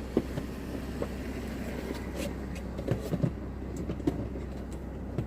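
Steady low hum with a few light knocks and clicks scattered through it.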